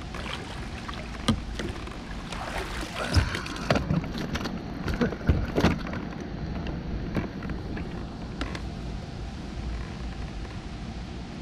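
Steady low rumble on the water around a fishing kayak, with a run of sharp knocks and clicks from gear being handled aboard, most of them between about one and six seconds in.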